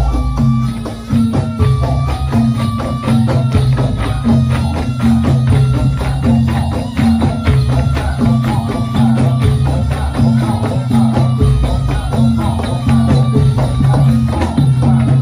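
Loud Javanese gamelan-style music: a steady percussion beat with low pulsing tones, over short bright pitched notes repeating at a few fixed pitches.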